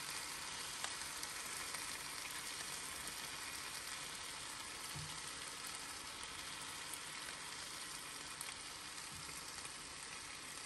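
Steak frying in a pan, a steady sizzle.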